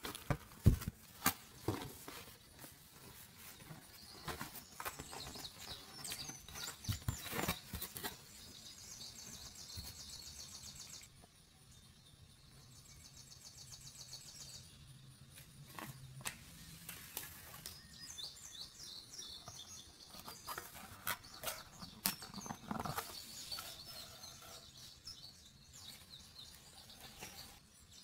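Card and plastic pieces of a toy roundhouse kit being handled and pressed together: scattered clicks, taps and rustles, the sharpest about a second in. Birds chirp in the background in short high runs of notes.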